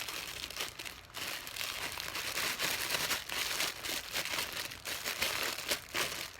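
Plastic wrapper crinkling and rustling in quick, irregular crackles as a squishy toy is pulled out of its packaging.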